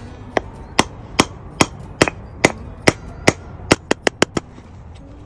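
Hammer striking a steel punch held on a towel-covered ceramic teacup, knocking a drainage hole through its bottom: about a dozen sharp metal-on-metal taps, evenly spaced at roughly two and a half a second, quickening into a rapid run of four near the end.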